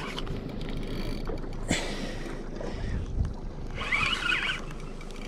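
Penn Spinfisher 6500 spinning reel being cranked, retrieving line against a hooked fish, with water sloshing against a small boat's hull. A few short knocks and a brief higher-pitched rasp come about four seconds in.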